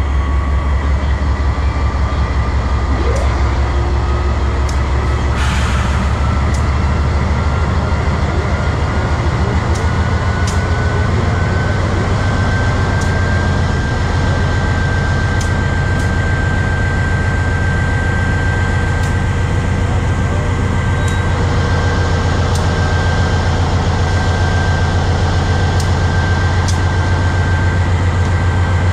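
Diesel-electric freight locomotive running, with a heavy steady low engine drone and a thin whine that rises slowly over the first dozen seconds and then holds. A short burst of hiss comes about five seconds in, and faint light clicks are scattered throughout.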